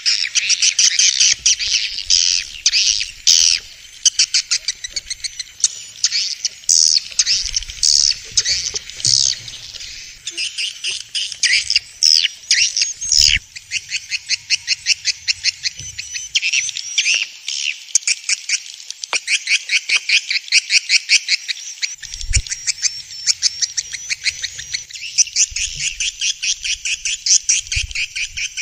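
Swiftlets calling: fast, continuous trains of short, buzzy chirps repeating many times a second.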